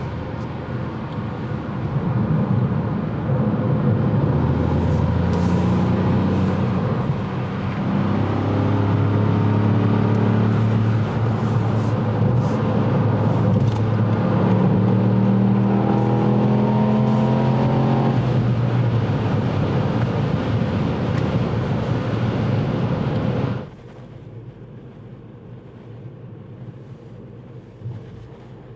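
Ford Fiesta ST's 1.5-litre three-cylinder turbo engine pulling the car along over road noise, rising in pitch twice as it accelerates. Near the end the sound drops suddenly to a much quieter steady hum.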